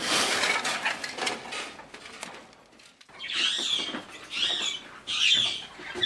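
Cloth rustling as a cage cover is handled, then a pet bird gives three short calls about a second apart.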